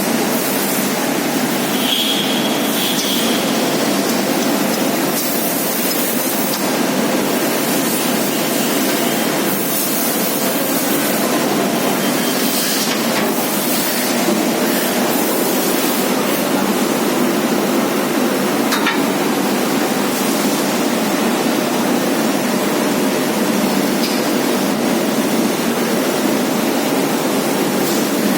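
Industrial component washing machine running: a loud, steady hiss of spraying water and machinery, with a few short knocks and a brief high squeal about two seconds in.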